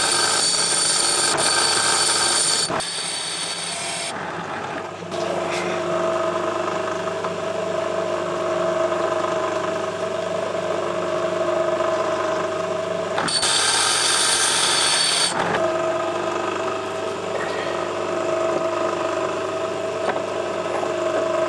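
Workshop machine noise: a steady motor hum with two short bursts of loud hiss, one at the start lasting a couple of seconds and one about two-thirds of the way through.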